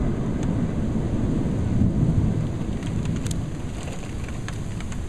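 Thunder rumbling low, swelling about two seconds in and then fading off, with a few sharp raindrop ticks in the later part.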